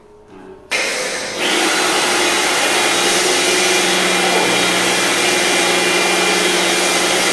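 Lakoni Laguna 70 electric pressure washer switching on when the trigger is pulled, under a second in, then running steadily with a humming motor and a loud hiss of foam spraying from the foam lance fitted with a 1.1 mm orifice nozzle. The hiss grows stronger once more a moment after it starts.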